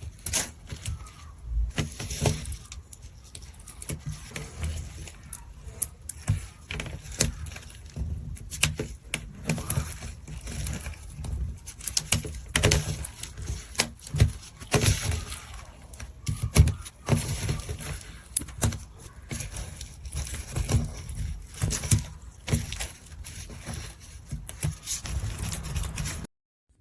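Hands squeezing and kneading a squishy stress-relief toy: irregular wet squelches and crackles, several loud pops among them, stopping abruptly near the end.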